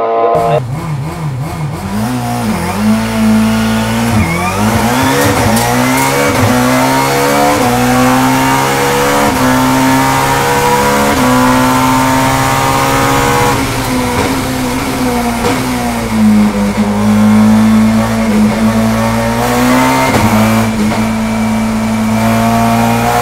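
In-car sound of a BMW 320i STW E36 race car's naturally aspirated 2.0-litre four-cylinder engine with individual throttle bodies, revving hard and climbing through the gears, its pitch dropping sharply at each upshift. About halfway through the revs fall away as the car slows and shifts down, then the engine pulls hard again near the end.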